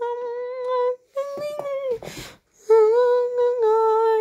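A high voice humming a tune without words in long held notes: about four notes, the second a little higher and sliding down at its end, with a short breathy hiss about halfway through.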